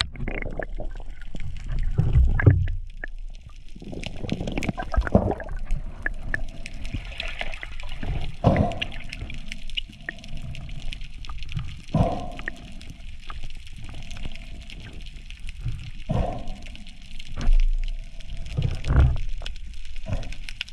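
Water gurgling and sloshing around an underwater camera, with irregular surges every few seconds over a steady hiss.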